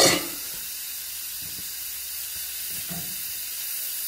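Sliced leeks and grated carrot sautéing in olive oil in a frying pan, giving a steady sizzle, with one brief sharp knock at the very start. A wooden spoon begins stirring the vegetables near the end.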